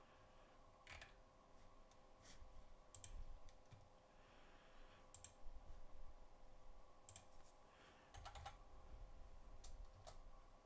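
Faint computer mouse clicks and keyboard keystrokes: scattered single clicks, then a quick run of typing near the end.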